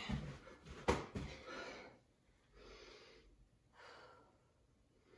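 Heavy breathing, out of breath after a set of jumping jacks: a long breath followed by two shorter ones, with one sharp knock about a second in.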